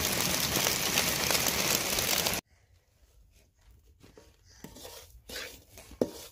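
Heavy rain falling steadily, cut off abruptly after a little over two seconds. Then a wooden spoon scrapes and stirs dry semolina roasting in oil in an aluminium kadhai, faint at first, the strokes growing louder near the end.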